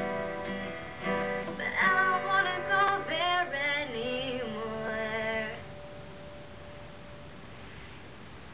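A woman singing to strummed acoustic guitar; the voice and guitar stop about five and a half seconds in, leaving a faint steady hiss.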